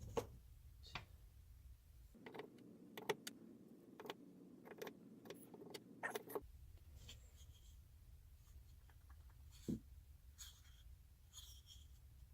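Faint, scattered clicks and taps of metal driver bits being set into drilled holes in a wooden bit holder and knocking against one another, a few of them sharper and louder.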